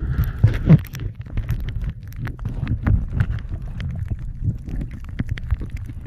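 Water sound picked up by a camera held underwater on a shallow reef: a low rumble of moving water with many scattered sharp clicks and crackles, and a short louder burst in the first second.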